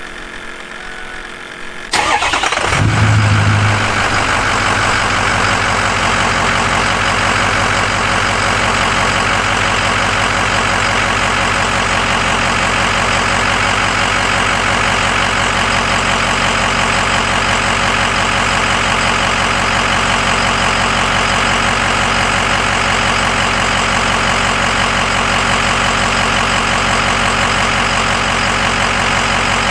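Ford 6.0-litre Power Stroke turbo-diesel V8 starting about two seconds in, flaring briefly, then settling into a steady idle. This is its first start after an oil change, running so that oil fills the lines and purges air pockets; the owner says it sounds smooth.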